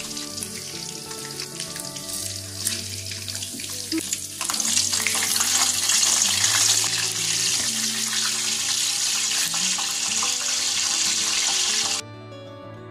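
Chicken pieces deep-frying in hot oil in a wok, a dense sizzle full of small crackles that gets louder about four and a half seconds in. It cuts off abruptly near the end, leaving soft background music.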